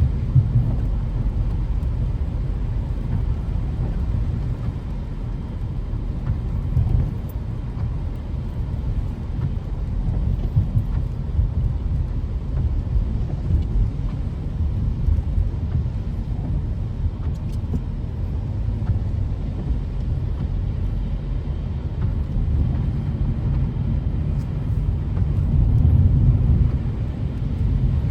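Steady low rumble of a car on the move: road and engine noise, without pauses.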